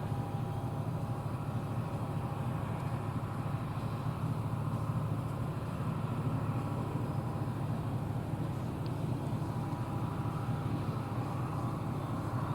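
John Deere combine running steadily while harvesting soybeans: an even, low engine and machinery drone with a faint steady whine over it.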